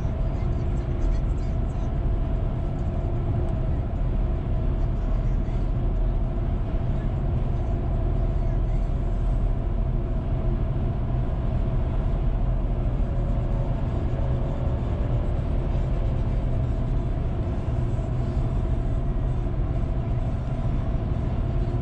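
Steady road noise heard from inside a car's cabin while driving at speed: a low, even drone of engine and tyres on asphalt, with a faint steady hum over it.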